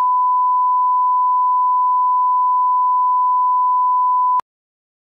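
Steady 1 kHz line-up test tone accompanying broadcast colour bars, cutting off abruptly about four seconds in.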